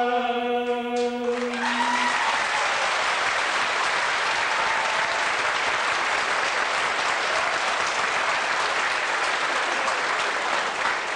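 Large audience applauding at the end of a song, the clapping starting about a second in and running on steadily, while the unaccompanied male singer's held final note dies out about two seconds in.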